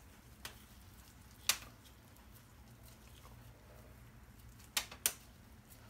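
Quiet handling sounds of stuffing eggplant slices with meat filling: a few short taps and clicks of gloved hands, food and a stainless-steel bowl. The loudest is about a second and a half in, with two more close together near the end.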